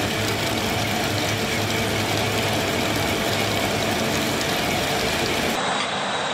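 Industrial laser-cutting machine running while cutting a curved steel part: a steady machine hum under a constant hiss. Near the end the sound changes abruptly to a thinner, different machine noise.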